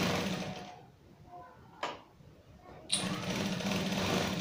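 Typical industrial high-speed sewing machine stitching a gathered seam through a gathering foot, in stop-start bursts. It runs and stops within the first second, there is a single click near the middle, and then it starts again sharply about three seconds in and keeps running.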